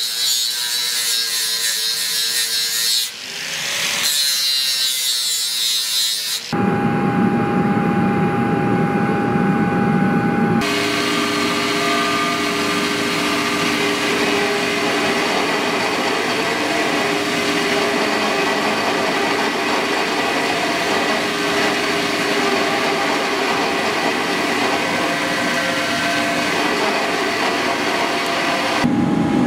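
An angle grinder cutting into a steel knife blank, its whine dipping and rising again about three seconds in. From about six seconds in the sound changes abruptly to a belt grinder running steadily as the steel blade is ground against the belt.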